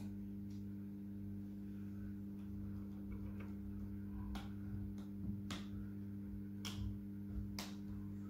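Folded paper flowers being handled and pressed onto card: several sharp paper clicks and taps about a second apart in the second half, over a steady low electrical hum.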